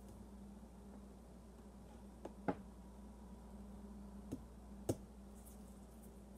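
Four short, sharp handling clicks, the loudest about two and a half and five seconds in, over a low steady hum.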